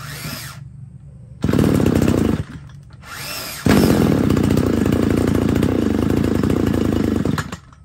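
Komatsu 2750 brush cutter's small two-stroke engine idling low, then revved twice: a short blip of about a second, then a held rev of about four seconds before dropping back to idle.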